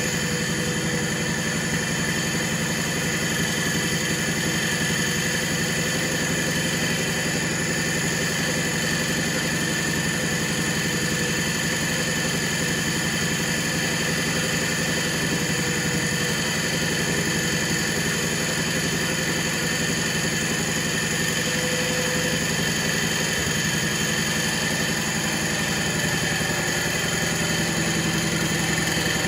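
1970 John Deere 140 H3 garden tractor engine running steadily at a constant speed.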